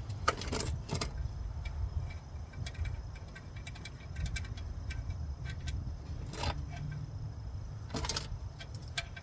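Wind rumbling on the microphone, with scattered light metallic clinks and jingles from a wrench and the oil drain plug as the plug is worked loose under a car. The clearest clinks come near the start, about six and a half seconds in and about eight seconds in.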